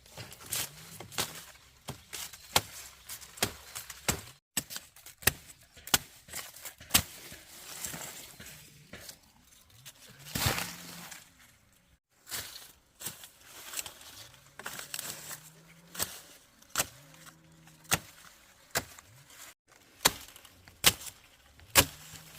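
Sugarcane being cut with a blade: sharp, irregular chopping strokes, roughly one or two a second, with tearing and crackling of the stalks and leaves.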